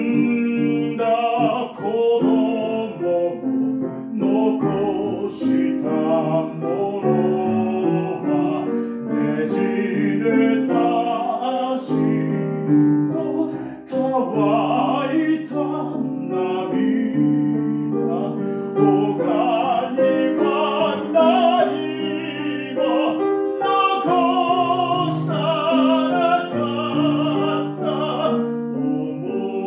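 A man singing in classical operatic style with wide vibrato, accompanied by a grand piano.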